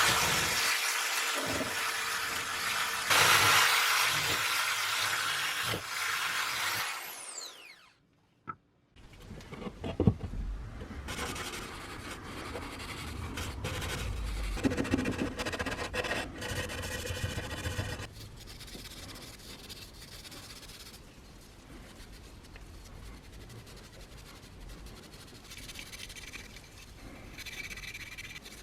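A power tool running against metal, its motor winding down about seven seconds in, followed by quieter rubbing and scraping with an occasional knock.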